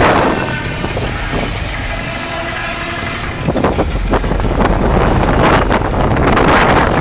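A boat's horn sounds one long, steady blast of about three seconds, then heavy wind buffets the microphone.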